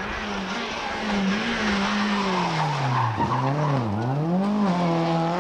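Toyota rally car's engine at speed, its revs dropping sharply twice about three and four seconds in, then climbing again as it powers through a bend. Tyres skid and gravel scatters as the car slides on the loose road edge.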